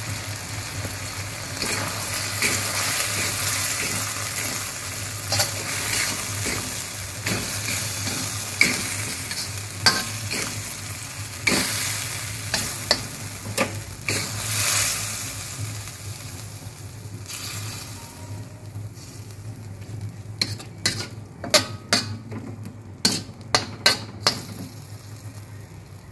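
Sauce sizzling in a steel wok while a metal spatula stirs it, with sharp scrapes and taps of the spatula against the wok. The sizzle dies down about two-thirds of the way through, and a quick run of spatula taps follows near the end.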